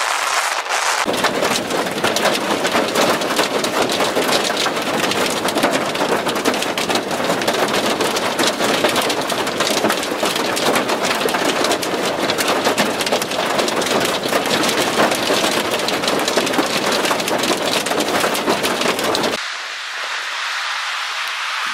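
Heavy wind-driven rain pelting down, a loud dense rushing hiss full of tiny impacts, starting about a second in. Near the end it cuts off suddenly to a softer, steady rushing noise.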